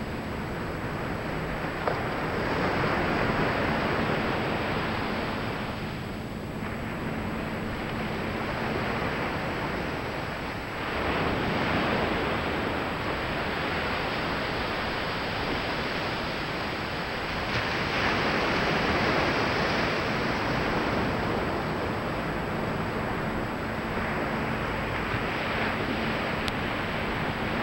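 Ocean surf breaking on a flat sandy beach: a steady wash that swells as each wave breaks, roughly every seven seconds.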